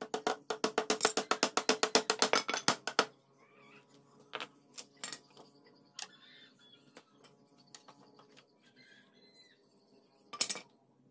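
Hammer driving a nail into a wooden shelf slat with rapid light taps, about eight a second for some three seconds. Then a few separate wooden knocks as loose slats are set on the frame, and a short clatter of wood near the end.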